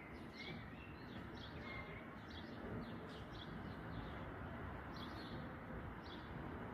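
Small birds chirping in short, repeated calls over a steady low rumble of background noise.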